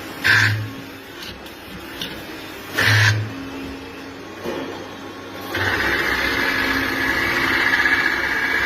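Machinery in operation: two short mechanical bursts, then a steady machine whir that starts about five and a half seconds in.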